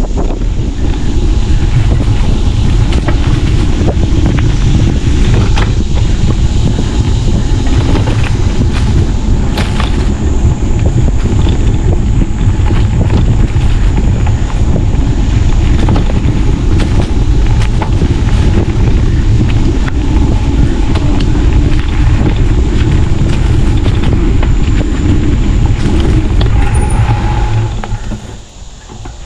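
Wind buffeting the microphone of a camera on a moving bicycle, a steady loud rumble, with scattered clicks and knocks from the bike rattling over the trail. The rumble drops away sharply about a second before the end.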